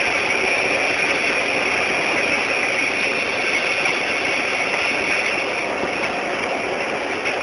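Hail storm: a dense, steady clatter of hailstones and rain pelting down.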